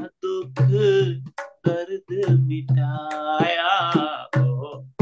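Man singing a Hindi devotional bhajan in long, wavering held notes, with tabla strokes beneath.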